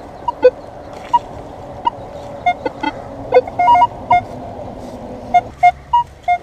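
Minelab X-Terra Pro metal detector beeping as its coil is swept over the ground: short tones at differing pitches, each pitch standing for a different kind of metal target. Near the end the beeps settle into repeats of one mid pitch, a steady signal on a buried target worth digging.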